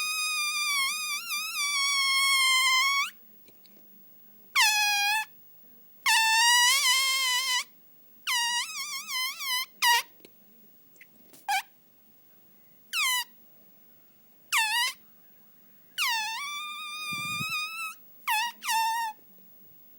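A high-pitched, squeaky, horn-like squeal comes in about ten calls of different lengths. Each call slides down at the start and then wavers. Near the end a brief low sound falls between the calls.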